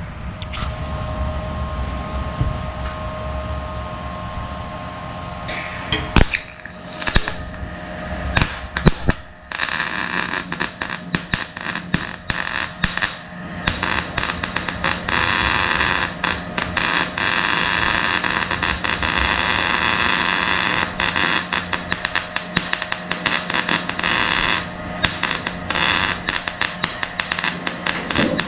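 Welding arc crackling and sizzling on a corroded hood-hinge rivet, in short bursts at first and then as a long continuous run. A steady hum sounds alone in the first few seconds before the welding starts.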